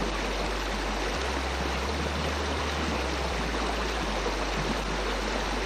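Shallow river riffle: water rushing and babbling steadily over stones.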